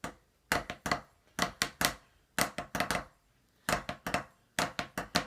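Drumsticks playing left-hand-lead Swiss army triplets, flams and double strokes in a triplet feel, coming out as short groups of sharp strokes with uneven gaps between them. It is the left-hand version, which the player calls trash next to his clean right-hand lead.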